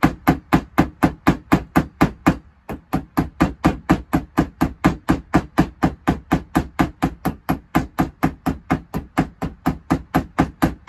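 Ball peen hammer tapping the rivet heads of a chainsaw chain's master link against a steel block, about five quick, light strikes a second with a brief pause about two and a half seconds in. The rivets are being peened by hand to mushroom them over in place of a rivet spinner.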